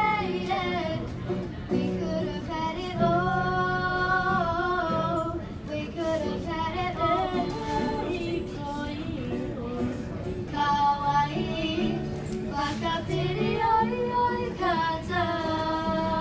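Two young girls singing a song together, accompanied by an acoustic guitar.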